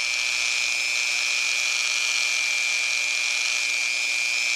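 Dremel rotary tool spinning a soft buffing pad at about half speed, held lightly against a Glock trigger bar to polish it: a steady high whine over an even hiss.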